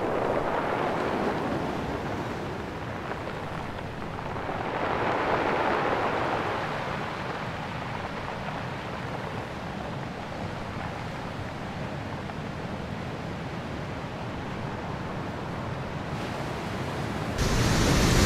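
Ocean surf washing over a rocky shore, swelling twice in the first seven seconds; about 17 seconds in it cuts to much louder surf breaking close by.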